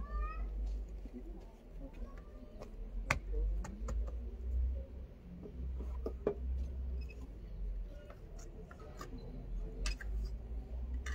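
Scattered clicks and scrapes of a hand tool, a trowel, working at a small block on a tiled tomb slab, over a low steady rumble. A short rising chirp sounds at the very start.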